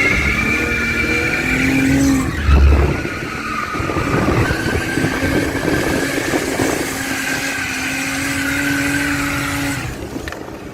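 Drift cars sliding, with engines held at high revs and tires squealing in long steady tones. There is a heavy low thump about two and a half seconds in.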